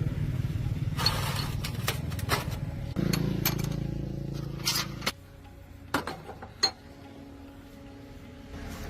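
An engine running with a steady pulsing hum that changes pitch about three seconds in and cuts off about two seconds later, with several sharp metallic clinks of tools on metal.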